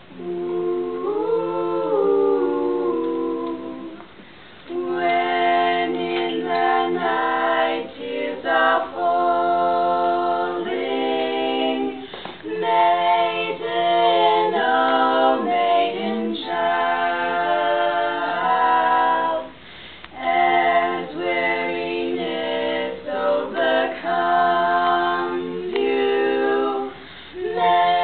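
Four teenage girls singing barbershop a cappella, four voices in close harmony with no instruments. The phrases are held and broken by short pauses, the first about four seconds in.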